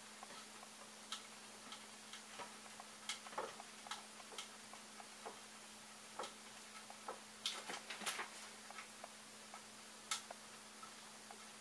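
Faint, irregular small clicks and taps of hand assembly work on a 3D printer's frame: hardware and metal parts being handled and tightened, with a brief run of louder clicks about two-thirds of the way through. A steady faint low hum sits underneath.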